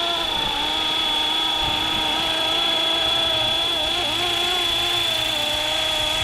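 Fly Wing Bell 206 450-size electric RC helicopter hovering: its motor and rotor give a steady high whine over a lower hum. The pitch wavers slightly as it holds position and dips briefly about four seconds in.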